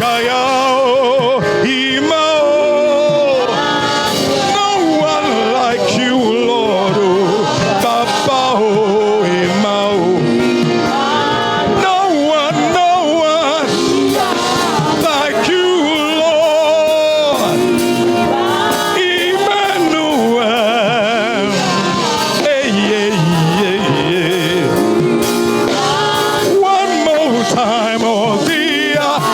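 Worship music with a voice singing throughout, its held notes wavering in a strong vibrato.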